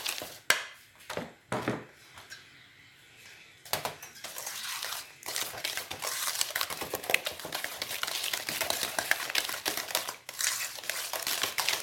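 Wooden spoon beating a creamy butter, sugar and egg batter in a stainless steel bowl: rapid wet scraping strokes against the metal. A few separate strokes at first, then continuous quick stirring from about four seconds in.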